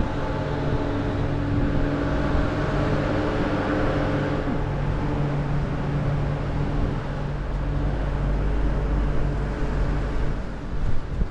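A motor vehicle's engine running steadily nearby: an even, low-pitched hum with several steady tones, its pitch shifting slightly about four seconds in.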